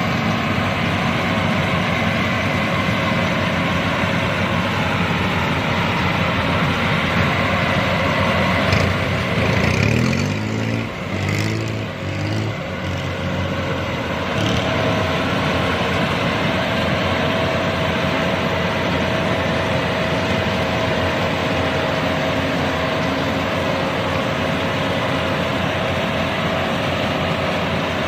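Yanmar 82V rice combine harvester running steadily under load, its engine note dipping and shifting for a few seconds about ten seconds in before settling back.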